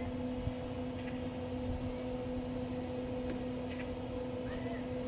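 A steady low hum held on two even tones, with a few faint ticks and short high chirps over it.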